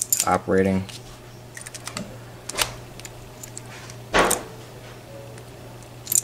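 Light metallic clicks of a key and a Mako M2 small-format interchangeable lock core being handled and seated back into a padlock body, with a louder clack about four seconds in.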